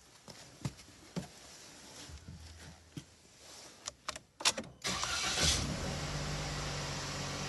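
A few sharp clicks and knocks, then a car engine starts about five seconds in and settles into a steady idle.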